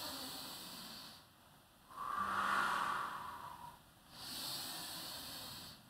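A woman breathing audibly in time with slow squats: three long breaths of a second or two each, alternating in and out, with short pauses between.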